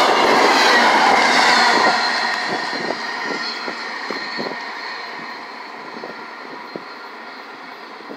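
A train rolling past and away, its rumble of wheels on rail dying away steadily, with a faint high whine and a few scattered light clicks as it recedes.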